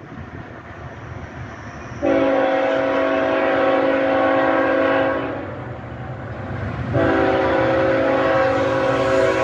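Diesel locomotive air horn sounding a chord of several notes: a long blast of about three seconds starting about two seconds in, then a second blast starting about seven seconds in and still sounding at the end, over the low rumble of the approaching train.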